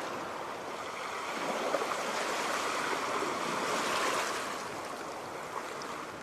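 Sea waves washing onto the shore: a steady hiss of surf that swells slowly to a peak about four seconds in and then eases off.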